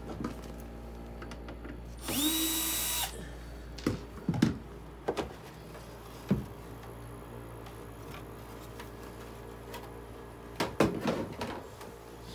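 A power screwdriver runs once for about a second, its motor whine rising then holding, followed by a few sharp knocks and a cluster of clatter as the dehumidifier's plastic casing and parts are handled, over a steady low hum.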